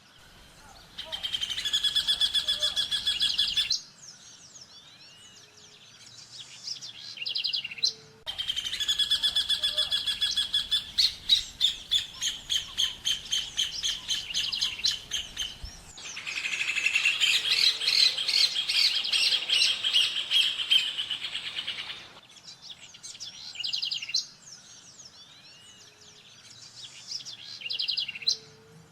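Rufous horneros singing: bouts of fast, repeated ringing notes, the longest running for over ten seconds, with shorter calls in the gaps between.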